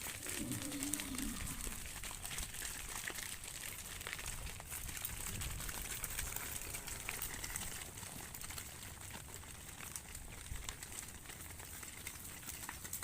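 A short, low animal call with several overtones about a second long at the start, and a fainter call midway, over steady hiss with scattered clicks and rustling.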